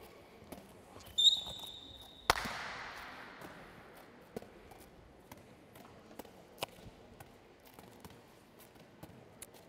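A handball smacking hard about two seconds in, its echo dying away slowly through the hall, after a short high squeak just before it; scattered light ball taps and footfalls follow.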